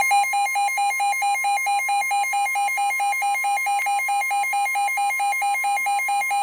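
Weather radio sounding a severe-weather alert: the steady NOAA Weather Radio warning alarm tone, with a rapid pulsing beep over it at about five beeps a second. This signals that a warning is about to be broadcast.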